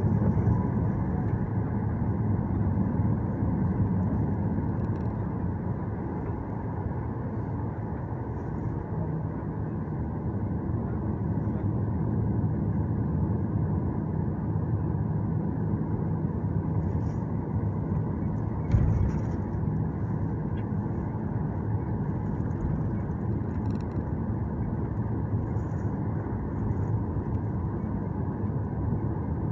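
Jet airliner cabin noise while taxiing: the jet engines run at low taxi thrust with a steady rumble and hum. There is one thump about two-thirds of the way through.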